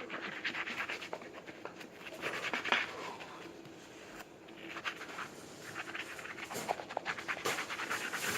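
A brush scrubbing a sneaker in quick, rough back-and-forth strokes.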